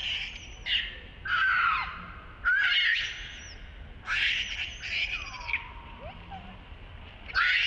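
Baby macaque screaming in a run of loud, high-pitched squeals, about six of them, several sliding down in pitch.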